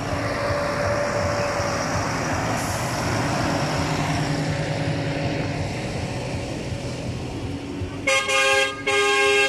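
A tractor towing a round baler drives close past with its engine running, its sound fading as it moves away. Near the end a vehicle horn sounds two loud blasts of about half a second each.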